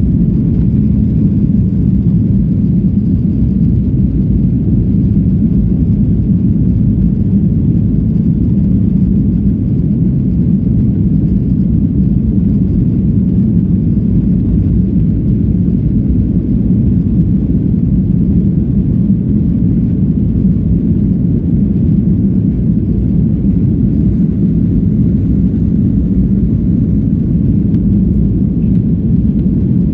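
Steady low rumble inside the cabin of a flydubai Boeing 737 taxiing on the ground, its jet engines running at taxi power.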